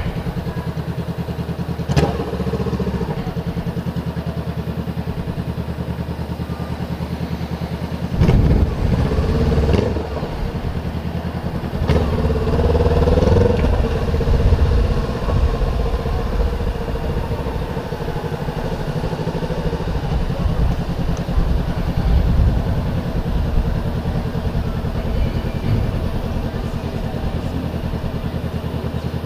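Honda CBR500R's parallel-twin engine running at low speed in town traffic, heard from on the bike. It runs steadily, with two short louder spells as the throttle opens, about a quarter of the way in and again near the middle.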